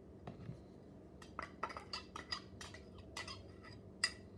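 A spoon clinking and scraping against a small glass bowl while scooping out dressing: a quick, irregular run of light clicks, with a sharper tap near the end.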